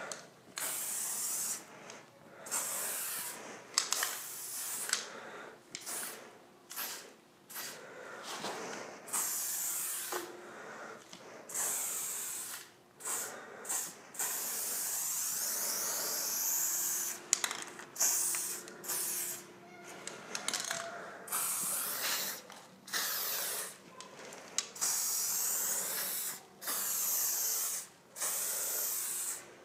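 Aerosol spray-paint can spraying in repeated hissing bursts, some short and some several seconds long, with brief pauses between strokes.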